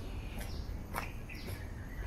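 Birds calling, one repeating a short high note that falls in pitch about once a second, over footsteps on a stone-paved path and a steady low rumble.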